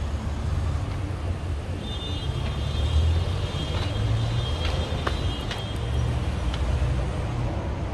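Steady low rumble of city background noise, with a few faint high-pitched tones and light clicks in the middle.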